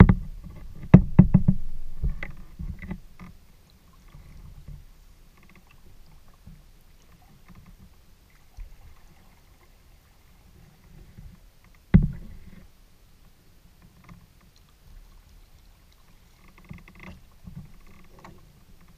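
Knocks and thumps on a Delta 12.10 kayak's hull as it is paddled on calm water: a cluster in the first three seconds and one sharp knock about twelve seconds in, with faint water sounds between.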